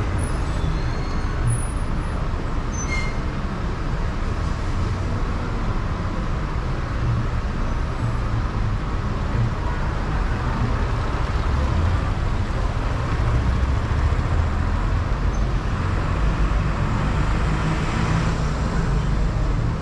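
City street traffic heard from a car stopped at an intersection: a steady low rumble of idling engines, with motorcycles drawing up alongside and a city bus passing ahead, whose noise swells near the end.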